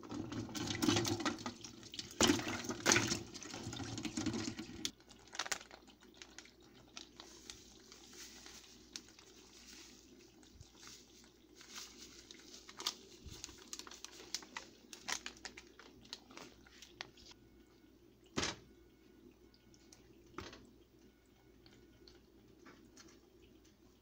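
Tap water running and splashing into a pot of blue crabs in a stainless steel sink, stopping about five seconds in. After that, faint scattered clicks and knocks as the crabs and pot are handled, with one sharper knock well into the second half.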